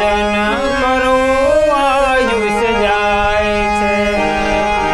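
Harmonium holding a steady drone chord under a Gujarati devotional song (bhajan), with a voice singing a long, gliding ornamented phrase in the first half.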